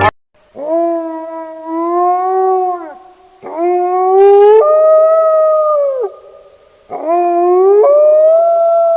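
Wolf howling: three long howls, the second and third climbing and then stepping up to a higher held note partway through before falling away at the end.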